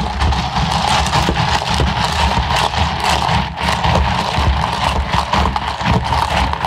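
A long spoon stirring a carbonated orange ade in a lidded plastic cup, with a fast, steady clatter against the cup.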